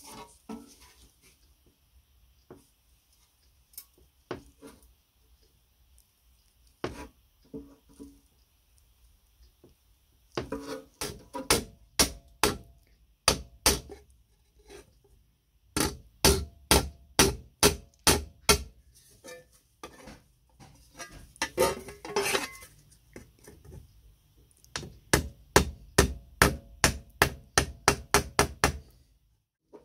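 Hammering on metal over a small steel anvil, working a tab on an old sheet-metal seed hopper: a few light scattered taps at first, then from about ten seconds in, runs of sharp strikes at about three to four a second, with short pauses between runs.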